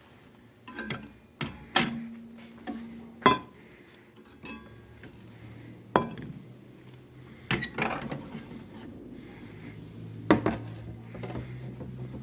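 Irregular sharp clinks and knocks of small hard metal or glass parts being handled and set down, about a dozen over the stretch, loudest about three and six seconds in. A faint steady low hum joins from about four seconds in.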